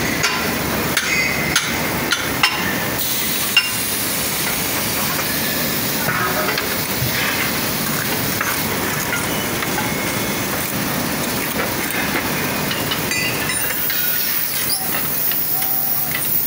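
Foundry shop-floor machinery din: a steady hiss with several sharp metallic knocks in the first few seconds.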